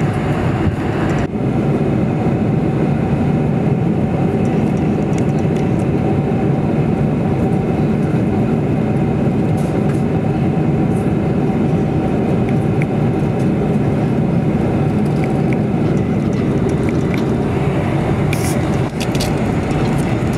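Steady in-flight cabin noise of a Boeing 747-400: a constant low rush of engines and airflow heard from a window seat, with a few light clicks near the end.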